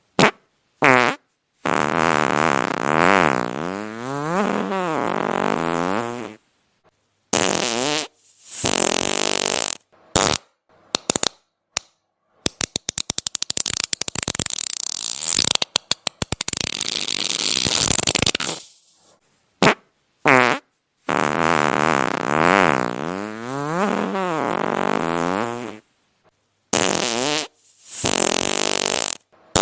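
A string of fart sounds, one after another with short silences between: a few brief pops, several long farts lasting a few seconds with a wavering pitch, and a long rapid sputtering run near the middle.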